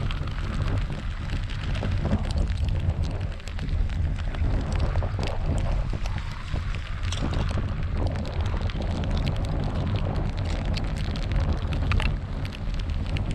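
Heavy rain falling on the river and striking the camera in many sharp ticks, over a steady low rumble of wind buffeting the microphone.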